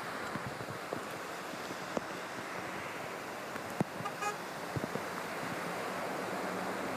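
Cars and trucks driving through deep floodwater in heavy rain: a steady rush of water and tyre spray with scattered knocks and splatters. A short car-horn toot about four seconds in.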